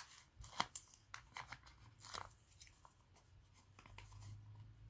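Faint clicks and paper handling as small rubber stamps and a sheet of sticker labels are moved on the craft table, over a low steady hum.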